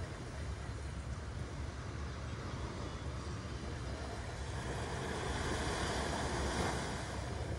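Small sea waves breaking and washing up a sandy beach, over a steady low rumble of wind on the microphone. One wave swells and breaks louder about five seconds in.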